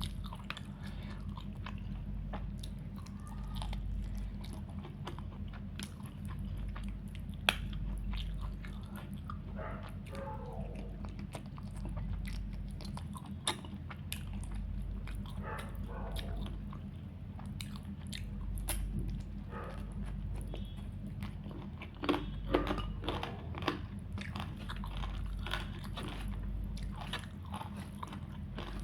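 A person chewing and biting food close to the microphone, with wet mouth sounds and crunchy bites: a mouthful of chicken curry, rice and salad. A steady low hum runs underneath.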